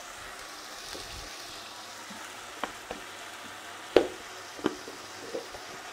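Potato-and-tomato masala with a little water sizzling and bubbling steadily in an aluminium kadai, with a few sharp clicks, the loudest about four seconds in.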